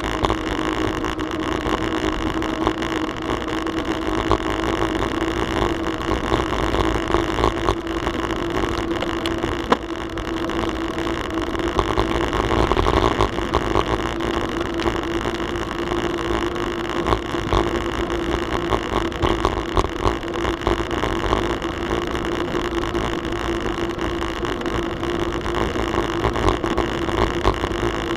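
Bicycle riding on an asphalt trail: wind rushing over the camera microphone and tyres rolling on the pavement, with a steady hum and scattered small clicks and rattles over bumps.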